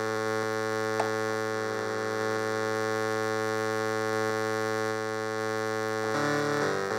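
Sequential Circuits Prophet-5 analog synthesizer holding one steady low note while its knobs are turned, with a small click about a second in. About six seconds in the pitch starts stepping through changing notes.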